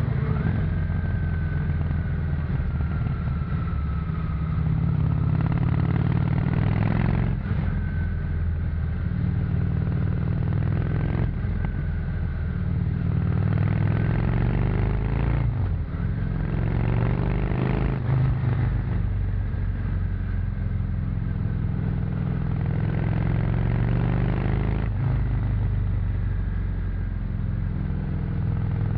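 1997 Honda VT 600 C Shadow's V-twin engine on its stock exhaust, heard from on board while riding. The engine note rises and falls with the throttle, with four brief breaks in it.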